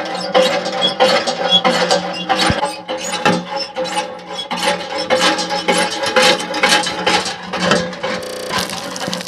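Tube well hand pump being worked: a quick, rhythmic run of metallic clanks and ratcheting clicks from the pump mechanism, over a steady ringing tone.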